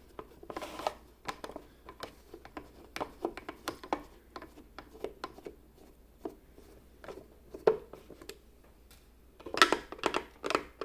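Scattered light clicks and ticks of a screwdriver working a small screw out of a plastic food processor lid, with the plastic parts knocking as they are handled; a denser burst of louder clicks comes near the end.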